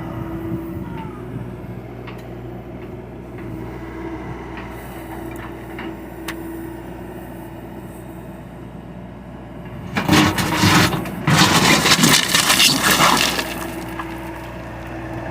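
John Deere excavator running steadily with a few light knocks, then about ten seconds in a loud, rough crunching and scraping that lasts about three and a half seconds as the machine works the ground, before it settles back to the engine alone.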